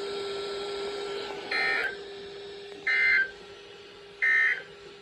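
Emergency Alert System end-of-message data bursts on a weather radio broadcast: three short, identical buzzy beeps about a second and a half apart over a steady low hum, marking the end of a severe thunderstorm warning.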